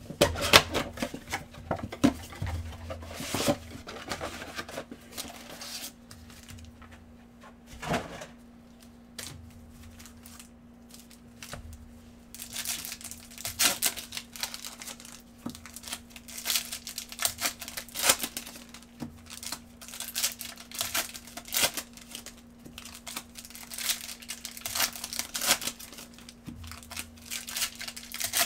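Wrapped trading-card packs from a Panini Prizm basketball mega box being handled and torn open: plastic wrappers crinkling and tearing in quick flurries of sharp rustles. It is sparser for a few seconds in the middle, then busy again.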